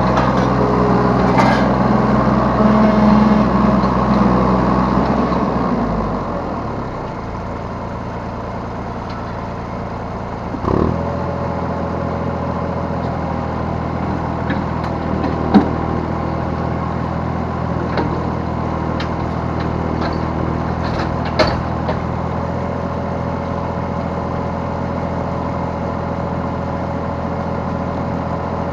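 Yanmar B3 Sigma 3-ton mini excavator's diesel engine running at working speed, then dropping to a steady idle about six seconds in. A few sharp clunks come over it, one about eleven seconds in and two more later.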